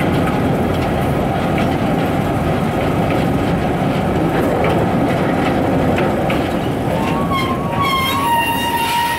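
Open-air rail cart running along the track, a steady rumble of wheels on rail. Near the end a high, pitched squeal starts and holds.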